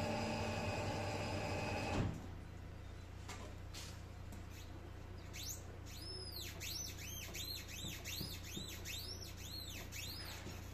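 Front suspension of a Mercedes C-Class (S205) squeaking: a run of high squeaks, each rising and then falling in pitch, about two a second. It is the squeak that comes with steering, on the left side only, which the owner suspects comes from the control arm (Querlenker). A steady hum cuts off about two seconds in.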